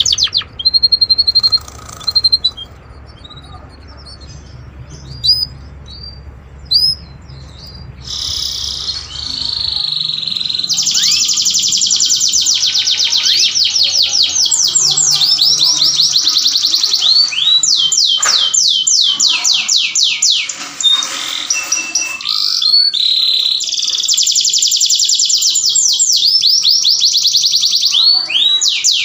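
Domestic canary calling: scattered short chirps at first, then from about eight seconds in, long runs of fast rolling trills with rapid repeated notes, broken by brief pauses.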